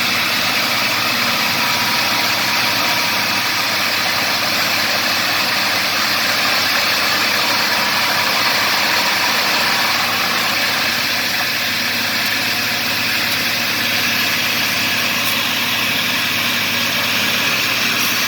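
Heavy diesel engine of an earthmoving machine running steadily and loudly, working the machine up a steep sand slope.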